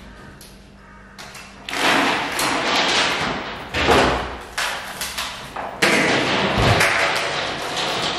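Thuds and knocks with a dense clatter as a fibreglass boat hull is worked on while it hangs from chain hoists. The noise starts suddenly about two seconds in, with the sharpest knocks around the middle.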